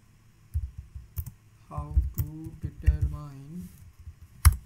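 Typing on a computer keyboard: scattered keystrokes, with one sharper, louder keystroke near the end. A man's voice speaks a few low words in the middle.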